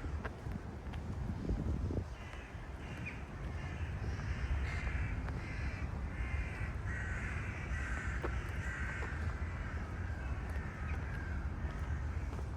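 Crows cawing repeatedly, calls following one another from about two seconds in until near the end, over a steady low background rumble.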